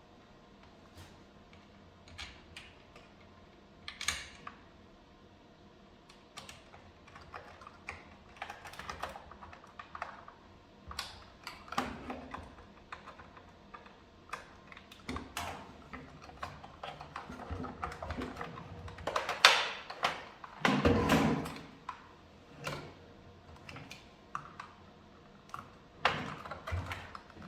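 Irregular plastic clicks, taps and knocks from hands working on the parts of a cordless vacuum cleaner during a battery swap. The sounds come sparse at first, then grow busier, with the loudest knocks about two-thirds of the way through.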